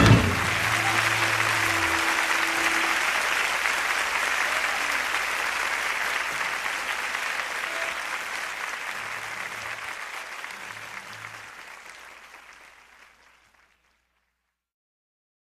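Concert audience applauding as the band's last chord dies away in the first couple of seconds; the applause gradually fades out.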